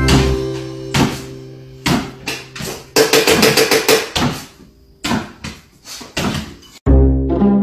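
Background music with sustained pitched notes and sharp percussive hits.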